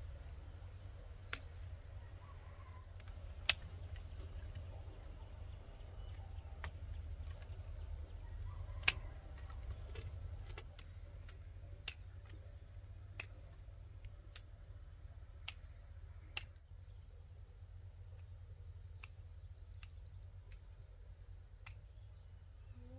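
Hand pruning shears snipping small branches off a young tree: sharp single clicks, about one every second or two, some much louder than others, over a low steady rumble.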